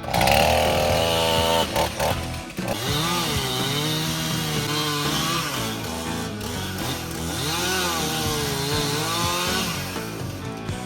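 Chainsaw cutting through poplar wood, its pitch sagging as it loads in the cut and climbing again as it frees, several times over. Background music plays underneath.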